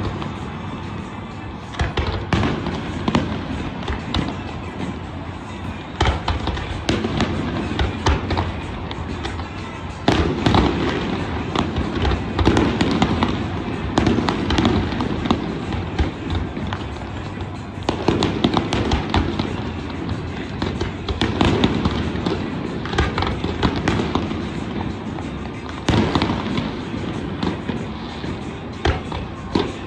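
Fireworks display: a continuous run of bangs and crackling bursts, with louder clusters of reports every few seconds, over background music and crowd voices.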